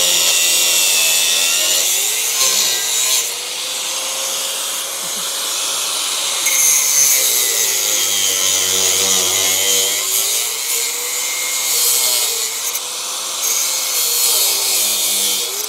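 Angle grinder working on the rusty steel of a motorcycle sidecar frame, a loud grinding hiss over the motor's whine. The whine sags several times as the disc bites under load and rises again as it is eased off.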